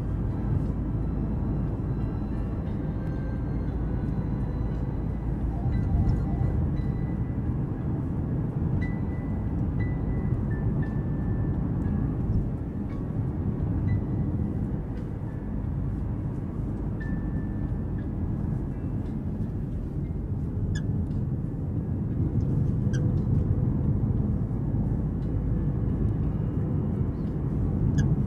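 Mazda CX-5 cabin noise on the move: a steady low road rumble with short, high-pitched squeaks coming again and again at irregular intervals from the rear. The squeak was traced to a worn rear shock absorber that still passes a vibration-stand test.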